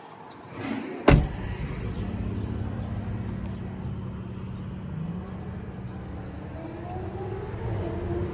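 A car door on a Range Rover Sport shutting with a single loud thump about a second in, followed by a steady low rumble.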